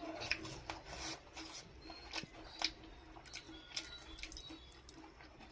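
Someone biting into and chewing a crunchy potato-stuffed bread pakora: irregular crisp crunches and clicks over a faint steady hum.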